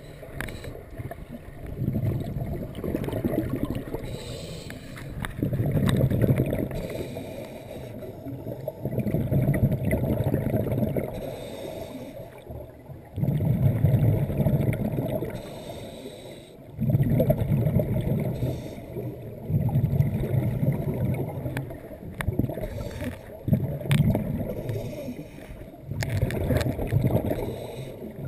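Scuba regulator exhaust bubbles from a diver breathing underwater: rumbling bubbling bursts a second or two long, repeating every few seconds with each exhalation.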